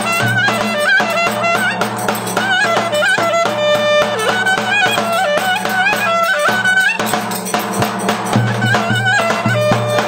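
Clarinet playing an ornamented traditional Turkish folk dance melody over a steady drum beat.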